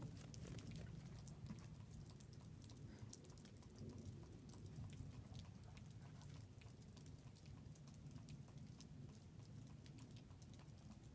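Near silence: faint, scattered light crunching of feet in snow over a low rumble.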